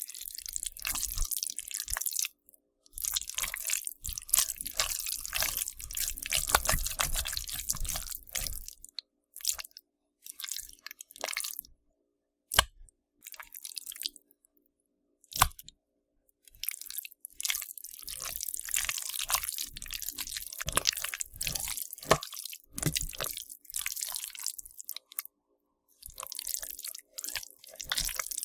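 Slime being squished: wet, sticky squelching made of many tiny crackles and pops, coming in runs of several seconds broken by short pauses, with a couple of sharper single pops in the gaps.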